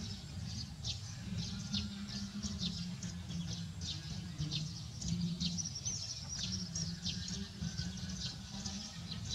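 Small birds chirping busily in the background: short, high, downward chirps several times a second, with one brief held whistle about halfway through, over a steady low rumble.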